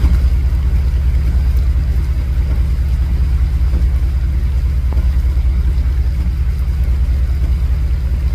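Vehicle engine idling, a steady low rumble heard from inside the cab, with a lighter hiss of heavy rain over it.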